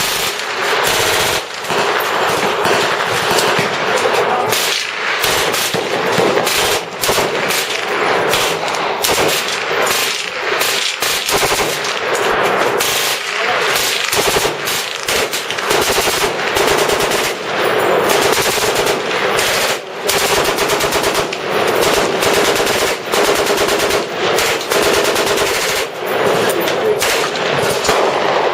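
Automatic gunfire from machine guns: dense, overlapping bursts with only brief lulls, going on nearly without a break.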